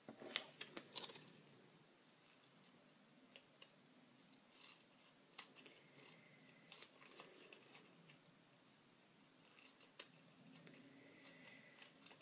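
Small craft scissors snipping through glued paper card, faint. A quick cluster of snips comes about half a second in, followed by single snips at scattered intervals.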